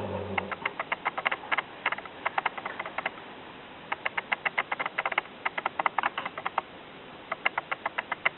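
Sick kitten smacking its mouth as it eats, a run of rapid wet clicks, about eight to ten a second, coming in several bursts with short pauses between.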